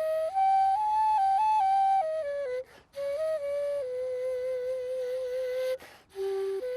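Kazakh sybyzgy flute playing a solo melody, stepping from note to note, with short breaks for breath about two and a half seconds in and near six seconds. A long held note with a slight waver fills the middle.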